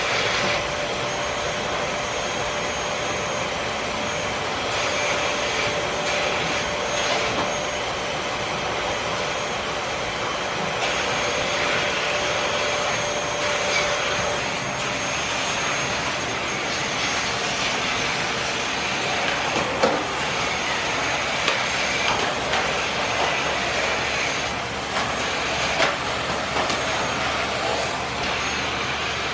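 Vacuum cleaner running steadily, a continuous whooshing motor noise with a faint whine, with a few light knocks in the second half as it is pushed about.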